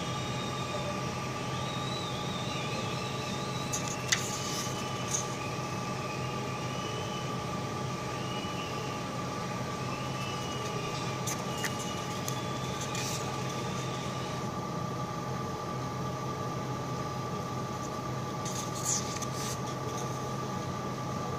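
Steady mechanical hum with a constant whine, broken by a few light clicks and rustles of paper sheets being handled.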